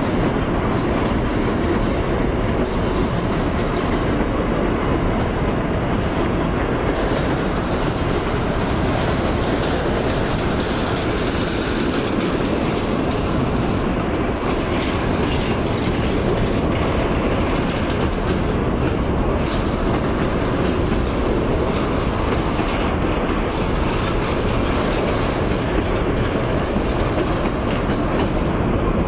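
Freight train of hopper wagons rolling past at steady speed: a continuous rumble of steel wheels on the rails, with clicks as the wheels cross the rail joints.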